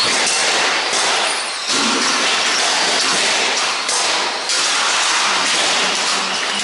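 Radio-controlled stock cars racing past on an indoor oval: a loud, steady rushing noise of cars on the track that rises and falls abruptly a couple of times.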